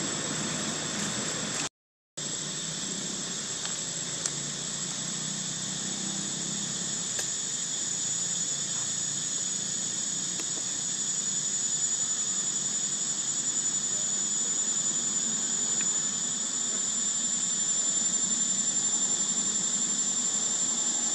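Insects droning steadily at a high pitch, a continuous shrill whine with a lower band beneath it. The sound cuts out for a moment about two seconds in.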